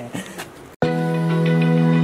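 Background music with sustained, held chords over a steady low note, starting abruptly just under a second in. Before it there is brief faint handling noise with a few clicks.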